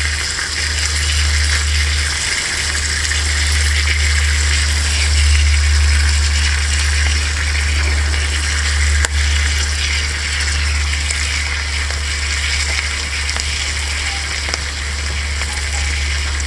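Chopped bacon sizzling in butter in a small titanium frying pan, a steady frying hiss with a steady low rumble underneath. A single light click comes about nine seconds in.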